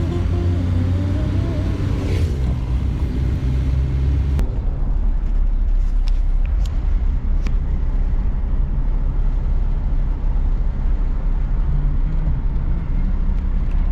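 Mahindra Bolero running with a steady low engine note. About four seconds in the sound cuts to a denser low rumble, with a few sharp clicks.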